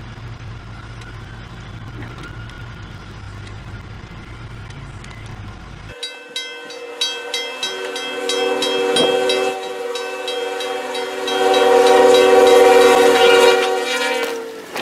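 A low steady rumble, then after about six seconds an abrupt change to a train horn sounding a chord of several steady tones over clacking. The horn is loudest near the end.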